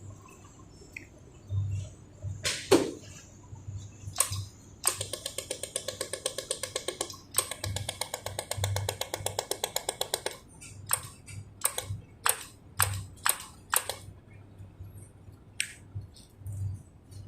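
Pulsed laser welder firing spot welds: a few single sharp snaps, then two long runs of rapid, evenly spaced clicks. It ends with about half a dozen separate clicks spaced under a second apart.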